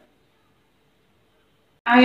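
Near silence: a dead gap in the sound, then a woman's voice starts near the end.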